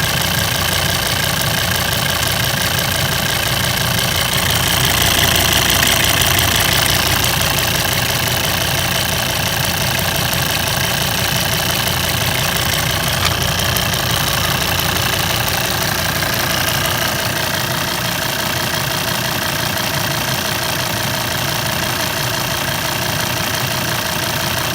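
Volvo engine idling with a steady, rapid ticking over the engine's running sound, which the owner cannot tell is normal or a fault.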